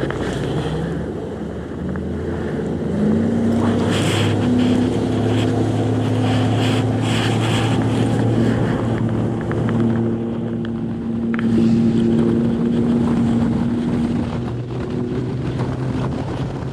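Bass boat's Mercury outboard motor running at speed, a steady drone that steps up in pitch about three seconds in, with wind rushing over the microphone.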